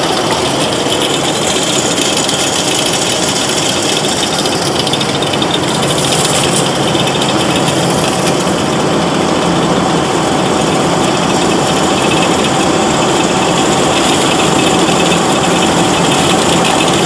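Factory machinery for drawing and cutting welding-rod core wire, running continuously with a loud, steady mechanical din.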